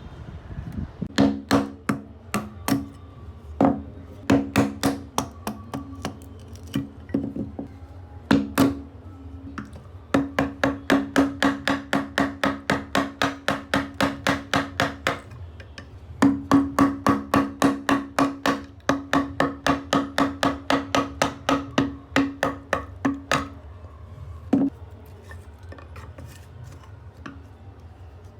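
Rapid, even wooden knocks, about four a second, in two long runs with a short pause between them and sparser knocks before, each ringing with a low tone.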